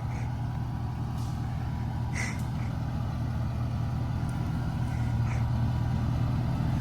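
Ford F-350 pickup's engine running at low revs as the truck slowly reverses, a steady low hum that grows gradually louder.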